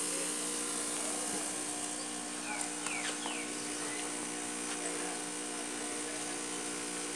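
Electric cotton candy machine running, its spinning head giving a steady hum with a high whine.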